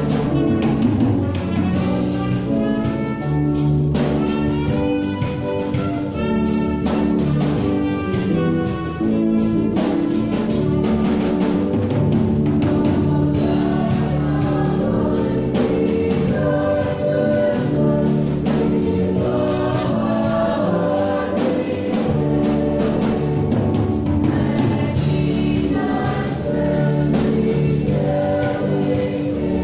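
Choir singing a hymn during the entrance procession of a Catholic Mass.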